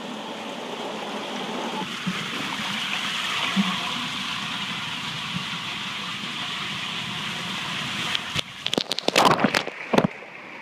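Water rushing through an enclosed tube water slide as a rider slides down, a steady hiss. About eight seconds in it breaks into a couple of seconds of splashing as the rider plunges into the pool.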